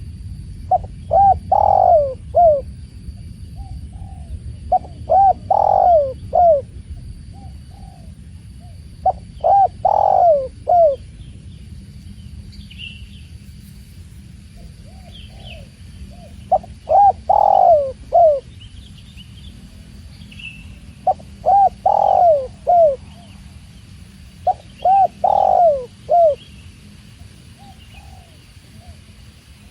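Spotted dove (tekukur) cooing: six phrases of a few rising-and-falling coos each, one every four seconds or so, with faint chirps of other small birds and a low steady rush of water beneath.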